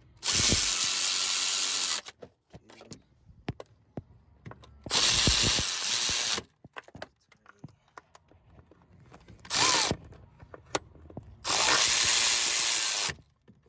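A power driver running the manifold fixings in, in four bursts: three of about a second and a half and one short one. Small tool clicks come between the bursts.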